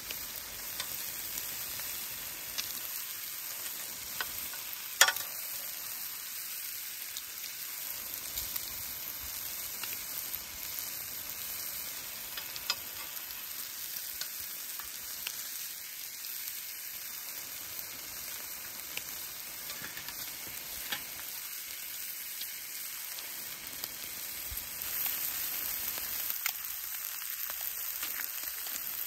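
Food frying in a hot pan: a steady sizzle with a few small pops and one sharp click about five seconds in.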